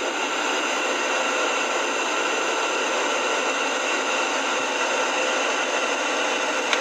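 Steady whirring of a fan heater, with a faint steady hum in it.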